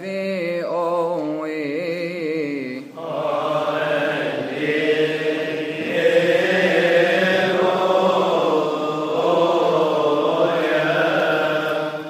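Male cantor chanting a Coptic psalm in a melismatic Holy Week melody, the voice turning through ornamented, wavering pitches. About three seconds in the chant becomes fuller and louder and stays so to the end.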